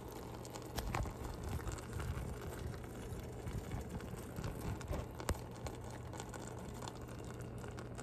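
Kitchen background with a steady low hum and handling rustle, broken by a couple of light clicks or knocks, one about a second in and a sharper one a little after five seconds.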